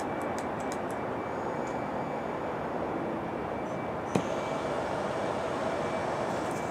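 Steady outdoor background noise, with one sharp click about four seconds in.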